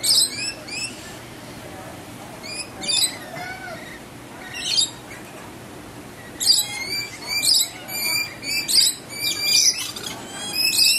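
Lorikeets giving shrill, high squawking calls in short clusters: a few at the start and at about three and five seconds in, then a rapid run of calls from about six and a half seconds on.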